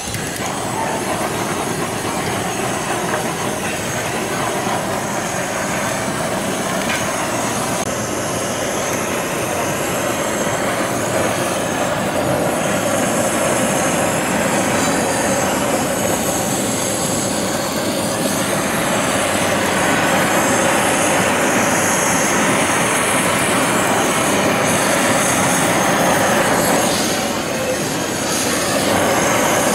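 Handheld butane blowtorch running with a steady hiss of the flame as it sears food. The sound dips briefly near the end, then comes back.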